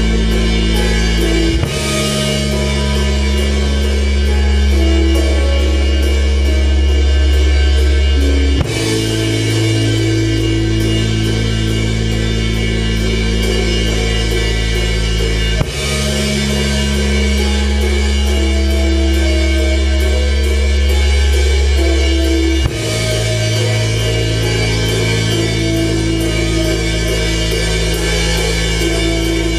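Rock band playing live: drum kit with busy cymbals, electric guitar and keyboard over held low bass notes that change about every seven seconds.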